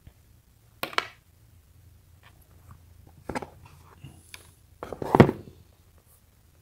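Handling noise from a leather basketball sneaker being turned over in the hands inside its cardboard box: three short rustling scuffs, about a second in, about three and a half seconds in, and the loudest about five seconds in.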